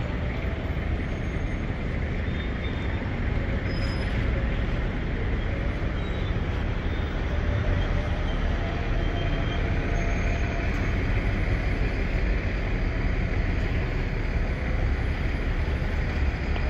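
Steady street traffic noise from passing vehicles, with a deep rumble throughout.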